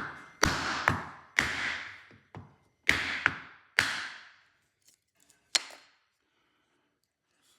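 Hammer blows on a wooden block, driving a slotted ABS reluctor ring onto a car's drive shaft: about eight sharp knocks in the first six seconds, each with a short ringing tail.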